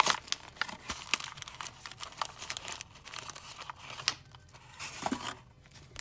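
Toy blind-bag packaging being torn open and crinkled by hand: a quick run of sharp crackles and tearing rustles that dies away about five seconds in.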